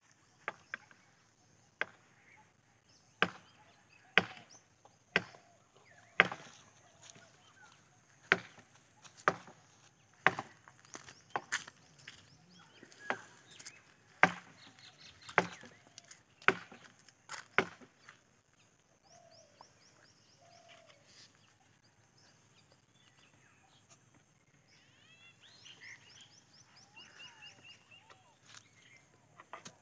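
A series of sharp knocks, about one a second, which stop about eighteen seconds in. Faint high chirping follows.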